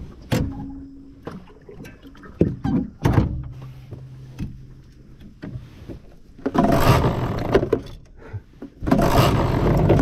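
Yamaha 20 outboard motor being started: a first loud burst about two-thirds of the way in stops after a second or so, then it fires again near the end and keeps running. Before that, scattered knocks and thunks in the aluminium boat.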